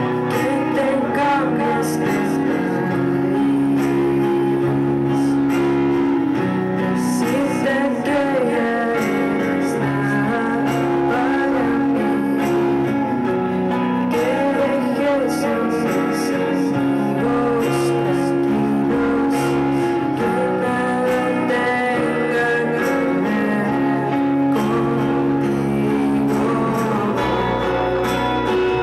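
A woman singing while strumming an acoustic guitar, a live solo song with steady strummed chords under the sung melody.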